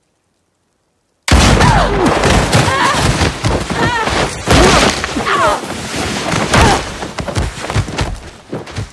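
A sudden loud crash about a second in, then fighters tumbling and thudding down a snowy slope, with grunts and cries throughout. It fades towards the end and cuts off abruptly.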